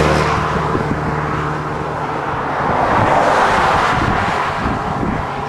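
Highway traffic passing close by. A vehicle's engine hum fades in the first moments, then tyre and road noise swells and fades around the middle.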